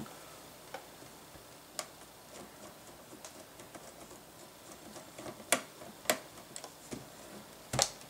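Light clicks and ticks of a screwdriver turning a small screw out of an Acer AspireRevo nettop's plastic case. A few sharper clicks come in the second half.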